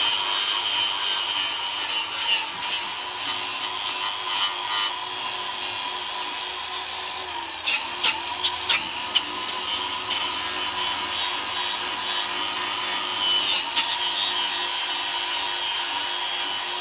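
Handheld electric power tool running steadily with a high whine while abrading the rusted, rotted metal of an ATV muffler, with a harsh scraping hiss. It eases off briefly about eight seconds in, with a few sharp ticks, then carries on and stops near the end.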